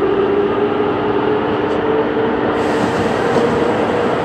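Running noise of a Tobu 9050 series electric train heard from inside the car while under way between stations: a steady rumble with a humming tone that rises slightly in pitch.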